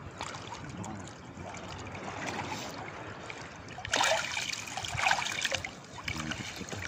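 Sea water sloshing and trickling around a person standing chest-deep while working a fishing net by hand, with louder splashing about four seconds in.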